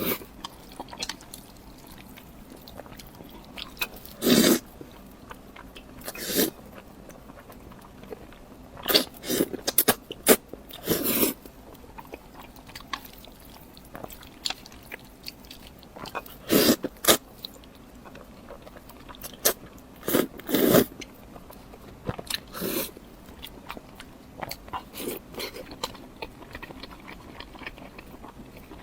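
Close-miked eating: bites and chewing of oden and fire-noodle food, with occasional crunches. The loud bites come irregularly, a few seconds apart, with quieter mouth clicks between them, thinning out toward the end.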